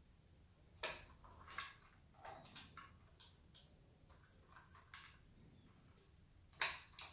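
Faint, scattered clicks, taps and scrapes of small tools and parts being handled while the scooter is taken apart, with a couple of louder clicks about a second in and near the end.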